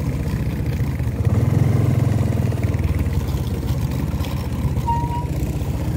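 Bajaj CT 100's small single-cylinder four-stroke engine running at low speed as the motorcycle is ridden. It pulls a little harder from about a second in and eases back near three seconds.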